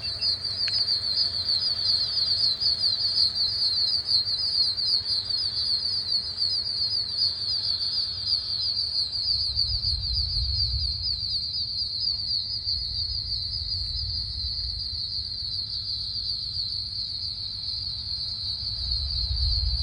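Deafening, steady chorus of insects in a dense, high, rapidly pulsing buzz. Low rumbles of distant thunder come about ten seconds in and again near the end.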